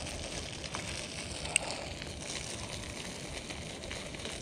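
Pliers unhooking a crankbait from a small bass's mouth: one sharp click about a second and a half in, over a steady outdoor hiss and rumble.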